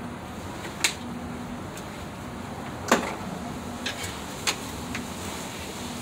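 A few sharp clicks and knocks, the loudest about three seconds in, over steady background noise: parts being handled in an opened refrigerator freezer while its evaporator fan motor is being replaced.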